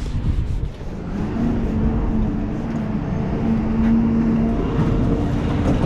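Road traffic: a vehicle engine humming steadily over a low rumble, the hum coming in about a second in.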